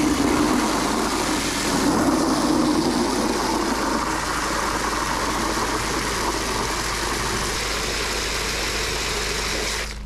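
Garden hose spray nozzle jetting water into a plastic mop bucket, filling it: a steady hiss and splash that cuts off near the end.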